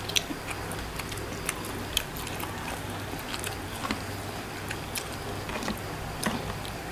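Quiet eating sounds: chewing and scattered small clicks of food being handled and bitten, over a steady low hum.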